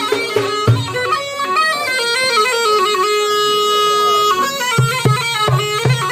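Chekoua, the North African bagpipe, playing a quick ornamented melody over hand-drum beats. About halfway through it holds one long note while the drum drops out, then the drum comes back near the end.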